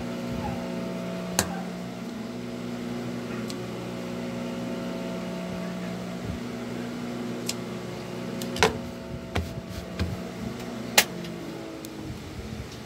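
Steady electric motor hum that thins out about two-thirds of the way through, with a few sharp clicks and snaps, most of them near the end.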